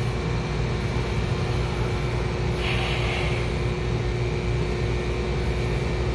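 Carrier air-conditioning condensing unit running in cooling mode, a steady mechanical hum with a low rumble and a few constant tones. A brief hiss comes in about two and a half seconds in.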